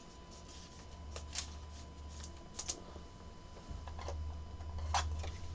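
Trading cards being handled and slid against one another, with a few short rustles and flicks over a low steady hum.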